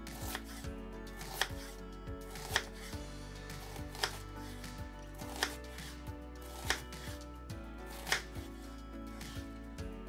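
Chef's knife cutting raw peeled potatoes into cubes on a wooden cutting board: irregular sharp knocks of the blade meeting the board, about one a second, over soft background music.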